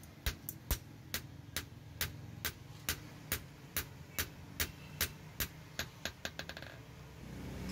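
Hand hammer striking a steel knife blade on an anvil block: sharp metallic blows at about two a second, ending in a quicker run of lighter taps.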